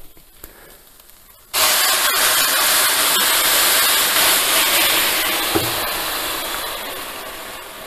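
Hot water poured into a hot stainless-steel pan of freshly toasted rice. About a second and a half in it sets off a sudden loud sizzling hiss, which slowly dies down as the pan cools.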